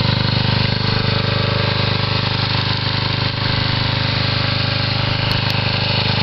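A small engine running steadily at an even speed, a constant low drone with a fast pulse.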